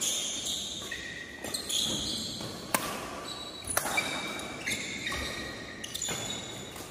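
Badminton rally: racket strings striking the shuttlecock with sharp cracks roughly once a second, echoing in the hall. Short high squeaks of shoes on the court floor come between the hits.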